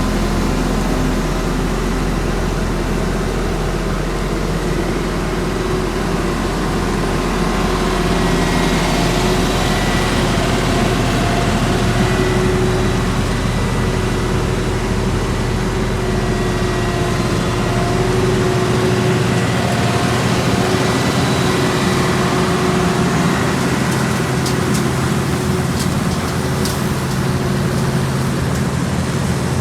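Heavy diesel engines of asphalt paving machinery running steadily at a constant pitch. The deepest part of the rumble drops away about two-thirds of the way through, and a few faint clicks come near the end.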